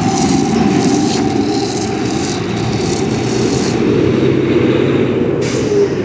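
Radio-controlled drift car running, with a steady motor whine over a dense rumbling noise; the whine fades about two-thirds of the way through.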